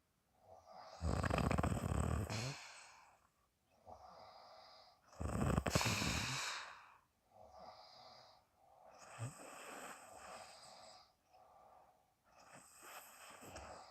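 A sleeping woman snoring: two loud snores, about a second in and about five seconds in, with softer breaths between and after them.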